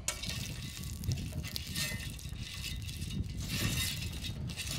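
Cooking oil sizzling on a very hot plancha: a steady hiss with irregular crackles.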